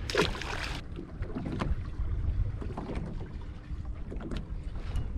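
Wind buffeting the microphone on a fishing boat at sea: a steady low rumble, with a short rush of noise just after the start and a few faint knocks.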